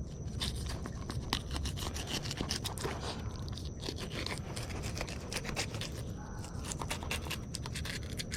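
Fillet knife scraping and crackling as it is worked through the scaly skin, flesh and bones of a black drum, a fast irregular run of small clicks and scrapes.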